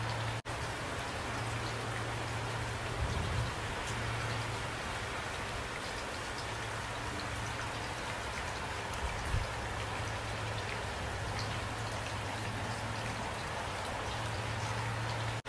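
Steady rain falling, an even hiss of many drops with a steady low hum beneath. There are two brief low bumps, about three and nine seconds in, and a split-second drop-out near the start.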